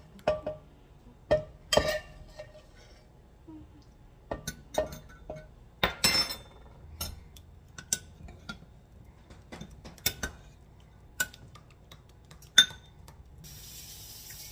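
A spoon clinking and scraping against a pan in irregular knocks while food is stirred and mixed, with one longer scrape about six seconds in. Near the end a steady sizzle of frying starts.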